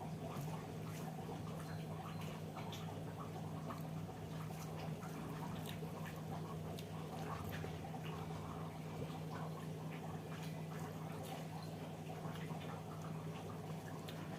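Close-up eating sounds: wet chewing and lip-smacking clicks from someone eating rice and dal, scattered irregularly over a steady low hum.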